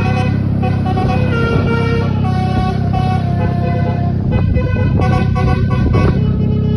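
Telolet multi-tone air horn of a Mandala Putra bus playing a quick melody of stepped notes, over a steady low rumble.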